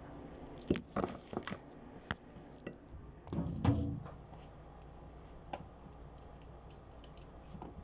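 Small clicks and rustles of hands picking the stems off grapes, with a louder, fuller handling rustle about three and a half seconds in.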